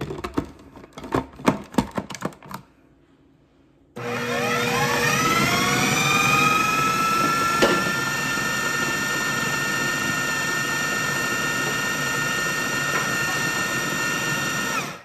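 Clicks and knocks as the food processor's lid is fitted and locked. About four seconds in the motor starts, its whine rising as it spins up, then runs steadily while pureeing a mix of raw beef heart and liver, and cuts off suddenly near the end.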